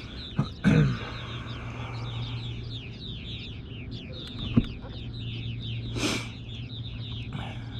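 Birds calling in a rapid, continuous series of short falling chirps over a steady low hum. A few knocks and a brief rushing noise about six seconds in break through.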